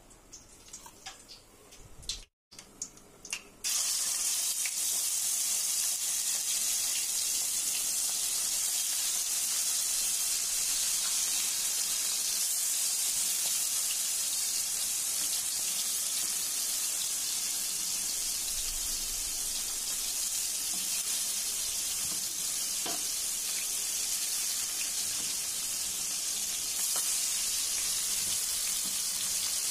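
Marinated chicken frying in hot oil in a pan: a steady, loud sizzle that starts about four seconds in, after a few quiet clicks.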